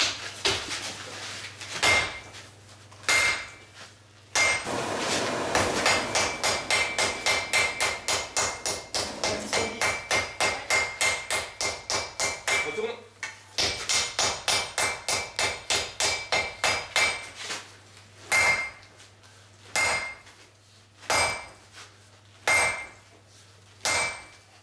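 Hammer blows on red-hot iron on an anvil during forge welding. There are fast runs of about four blows a second, then single strikes about a second and a half apart near the end, each with a ringing anvil tone.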